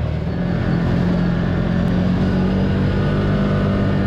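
Can-Am Commander 1000 side-by-side's V-twin engine running steadily while driving, heard from the driver's seat, with tyre noise from the gravel trail.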